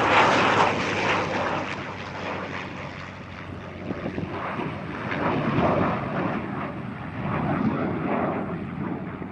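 F-22 Raptor and P-51D Mustang flying past in formation: the Raptor's twin turbofan jet noise blended with the Mustang's V-12 propeller engine. The sound is loud at once, eases off, then swells again twice.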